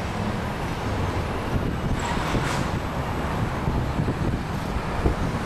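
Steady road and engine noise of a car driving, heard from inside the cabin, with a brief rise in hiss about two seconds in.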